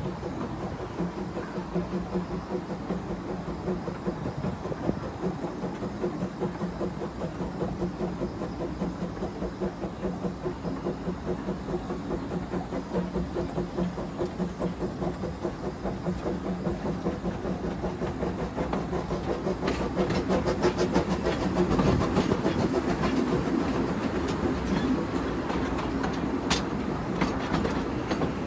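Small ride-on garden-railway steam locomotive and its train running along the track: a steady, rhythmic beat with the clickety-clack of wheels over the rails. It grows louder, with sharper clicks, about two-thirds of the way through.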